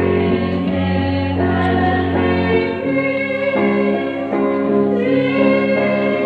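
A church choir singing a hymn with instrumental accompaniment, in long held notes.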